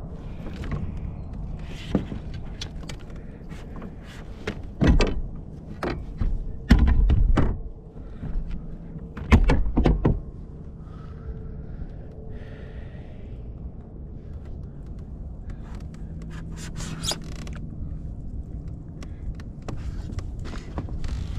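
Scattered knocks and thumps on a fishing kayak, with the heaviest thumps bunched in the middle, over a low steady background.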